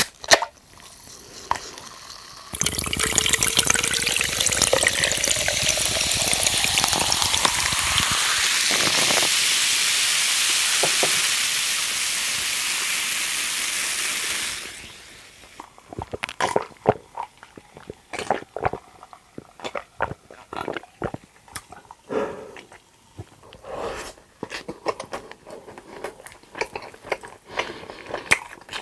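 Liquid poured steadily into a glass for about twelve seconds, its pitch rising as the glass fills, then stopping. After that, close-miked eating sounds: scattered short clicks and bites.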